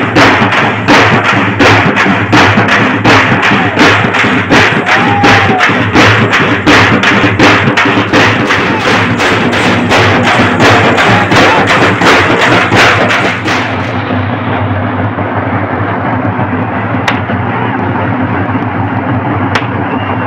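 Loud drumming, a steady beat of about three strokes a second. About two-thirds of the way through the strokes stop and a duller, steady din carries on.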